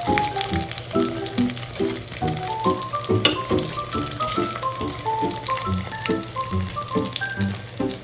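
Food sizzling and crackling as it fries in hot oil, under background music with a melody of short stepping notes.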